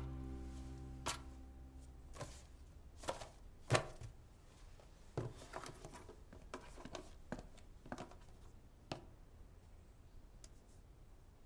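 Scattered light knocks, taps and rustles of cardboard boxes and paper being handled on a shelf, the loudest knock just under four seconds in. Background music fades out over the first two seconds.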